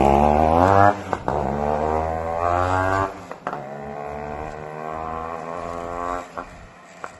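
Yamaha RX two-stroke motorcycle with an opened-up catalytic silencer, pulling away hard. The exhaust note climbs in pitch three times, dropping sharply between climbs as it shifts up, and grows fainter as the bike moves off.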